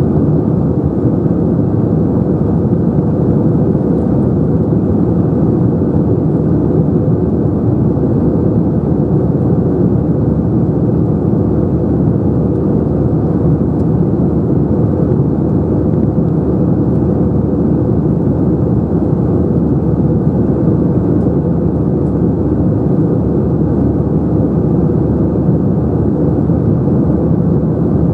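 Airbus A321-211 passenger cabin noise: a steady, loud drone of engines and airflow heard from inside the cabin, deep and dull with little treble, unchanging throughout.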